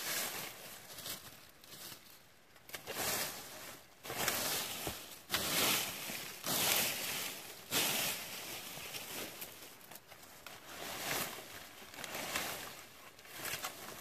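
A rake dragging through dry leaf litter and dead bramble stems, rustling and crackling in a series of uneven strokes, loudest about halfway through.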